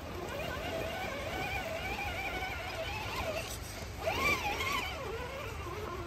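Axial Bomber RC rock crawler's electric motor and gearbox whining as it is driven up rocks, the pitch wavering up and down with the throttle and the load, rising and louder for about a second near four seconds in.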